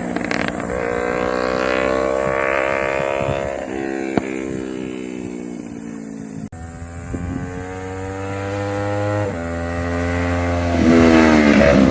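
Yamaha YZF-R3's parallel-twin engine being revved and held at steady revs, with one sharp exhaust pop about four seconds in. The sound cuts out for a moment past the middle, then the revs climb in steps and grow louder near the end.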